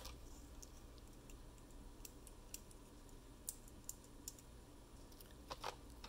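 Mechanical keyboard switches being pressed by hand, giving faint, irregular clicks, with a few louder ones near the end.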